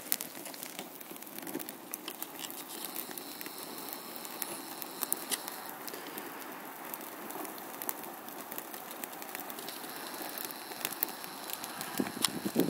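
Small fire of dry twigs and pine sprigs crackling faintly, with scattered sharp pops.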